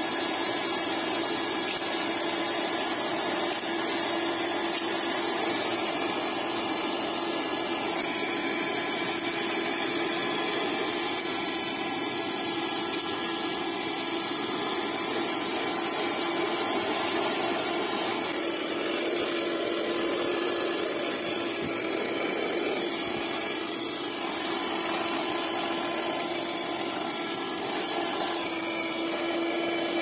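Piranha PVC-4005 12-volt car hand vacuum running steadily with a constant motor whine, its crevice nozzle sucking at grit and dirt on a rubber floor mat. The motor note dips and wavers for several seconds past the middle.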